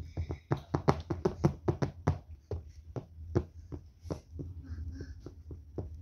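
Fingers tapping on a hard surface in a quick, uneven run of about six taps a second. After about two seconds the taps thin out to scattered ones.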